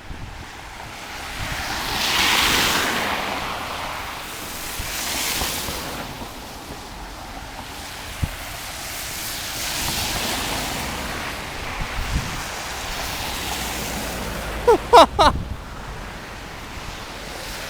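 Vehicles swishing past through wet slush on a snowy street, with wind: several slow rising-and-fading rushes of tyre noise. A short wavering voice-like tone cuts through about three-quarters of the way in.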